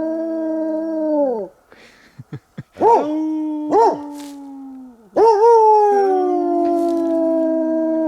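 A hunting hound howling. One long held howl falls off about a second and a half in, then comes a few short rising-and-falling yelps and another long drawn-out howl.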